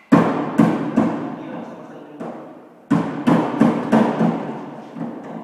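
Hammer blows on the sheet metal of a Mitsubishi L200 pickup's rear fender, beating out dents. Three hard ringing strikes open it, then a few lighter taps, then a quick run of about seven strikes around the three-to-four-second mark.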